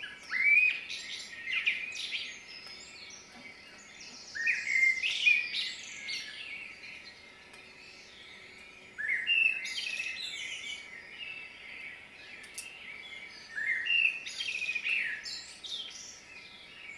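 A songbird singing in four short phrases of quick whistled notes, a few seconds apart.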